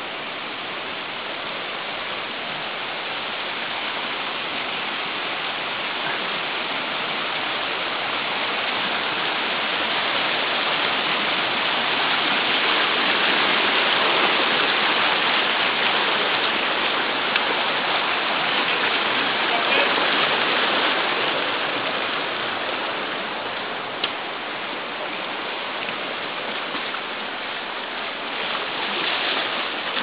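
Rushing water of the Virgin River, a steady hiss that swells toward the middle and eases off again, with one sharp knock about three-quarters of the way through.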